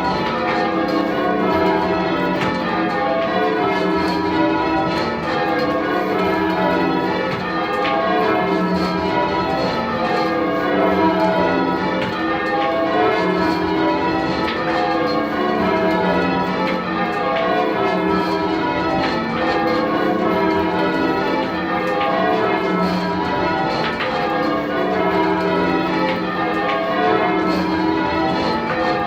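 Change ringing on a ring of ten church bells, tenor 18½ cwt in E: a continuous, even stream of bell strikes, the bells sounding one after another in constantly shifting order.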